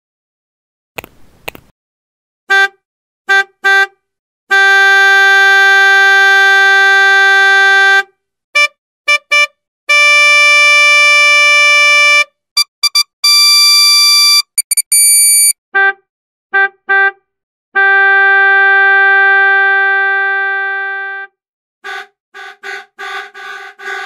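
Car horn sound effects played as a series of variations. Each variation is a few short beeps followed by a long held honk, and the pitch changes from one to the next; the last long honk fades out, and a quick run of short beeps follows near the end. Two short clicks come about a second in.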